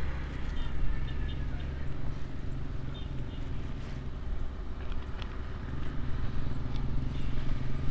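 Steady low background hum, like a motor running, with a few faint clicks and rustles as a small plastic bottle is handled and uncapped over a plastic bag.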